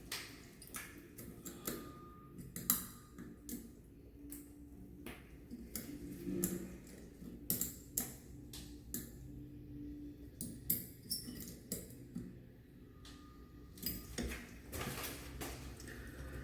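Scattered light clicks and taps at irregular intervals: small metal and plastic shower trim parts and tools being handled and fitted during reassembly of a shower valve.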